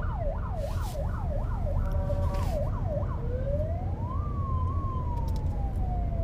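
Emergency vehicle siren heard from inside a moving car: a fast yelp sweeping up and down about three times a second, switching about three seconds in to a slow wail that rises and then falls gradually, over the car's low road rumble.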